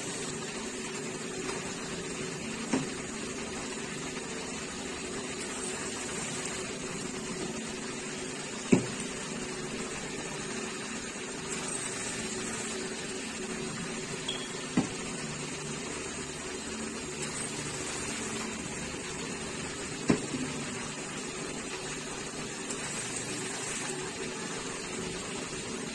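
Manual tabletop round-bottle labelling machine worked by hand, a short sharp knock about every six seconds (four in all) as jars are set in and the roller arm is worked, over a steady background hum.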